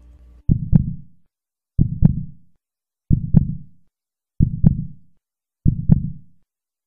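Heartbeat sound effect on its own: a low double thump, lub-dub, repeating about every 1.3 seconds, five beats.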